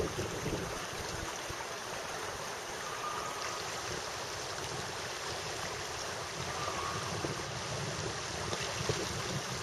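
River water flowing with a steady rushing sound.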